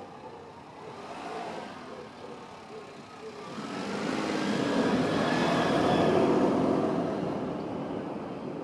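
A road vehicle passing by, growing louder for a few seconds and then fading away.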